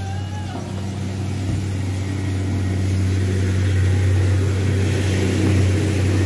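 A steady low engine drone, growing slowly a little louder. A brief faint gliding whistle comes right at the start.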